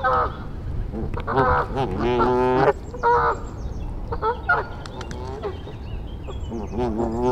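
Geese honking: a string of short honks, with a longer drawn-out honk about two seconds in and another near the end.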